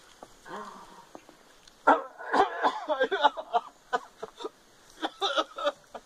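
Dog-like barking and whining: a quick run of short yelps and whines starting about two seconds in, then a shorter run near the end.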